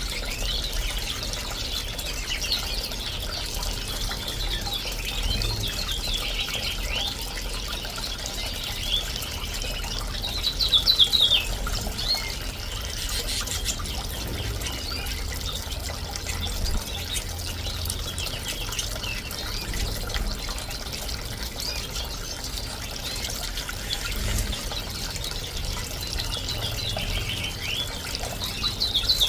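Small bird-bath fountain trickling and splashing while caged canaries and finches chirp and trill, with a louder run of quick chirps about eleven seconds in.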